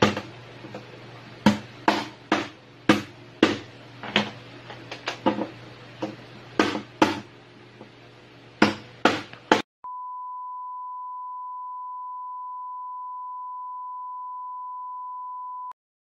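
A knife chopping through live crab on a plastic cutting board: sharp, irregular knocks about two a second over a steady low hum. About ten seconds in, the chopping stops and a single steady high beep sounds for about six seconds, then cuts off.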